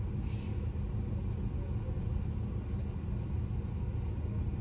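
Car engine idling while stopped, heard from inside the cabin as a steady low-pitched hum.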